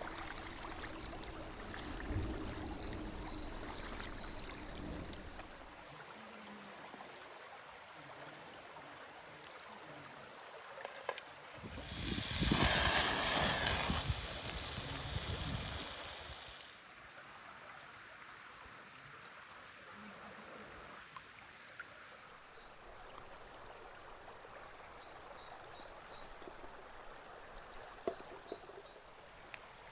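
Running water of a stream, with a louder rushing stretch for a few seconds about twelve seconds in. Short high chirps sound near the end.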